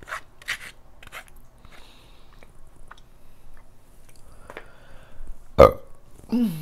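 Quiet eating sounds, chewing with small mouth clicks, then a loud burp about five and a half seconds in, followed by a short falling-pitched sound.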